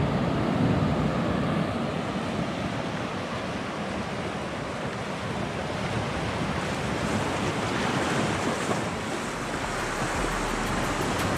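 Small waves washing and breaking over rocks at the water's edge, with wind buffeting the microphone.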